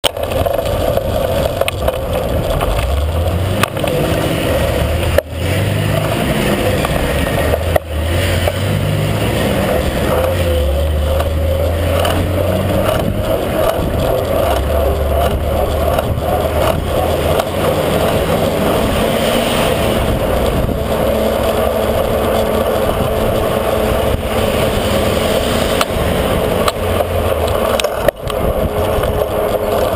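Wind rushing over the microphone of a bike-mounted camera while cycling, mixed with tyre rolling noise and road traffic. It is a loud, steady rush with uneven low buffeting, cutting out briefly a few times.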